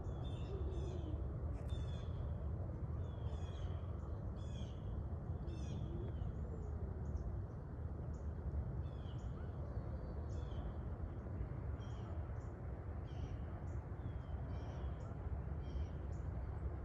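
Small birds chirping over and over, short high notes often sweeping downward, over a steady low rumble.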